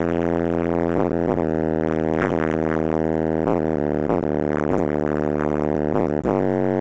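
Bass-heavy hip-hop test track played loud through a 10-inch Mordaunt-Short subwoofer in a car cabin: a sustained buzzing bass drone under a steady beat of sharp hits about twice a second.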